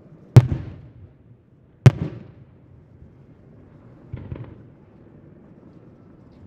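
Aerial firework shells bursting: two loud booms about a second and a half apart, each trailing off in a rumbling echo. About four seconds in comes a softer cluster of crackling pops.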